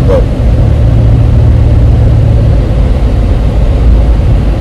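Car cabin noise: a steady low rumble of engine and road noise heard from inside a moving car.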